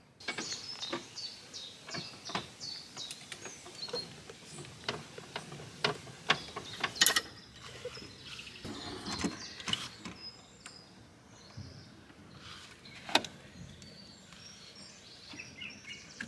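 Metallic clicks and knocks of a caravan's tow coupling being handled and hooked onto a car's tow bar, with one sharp click late on. Birds chirp in the first few seconds.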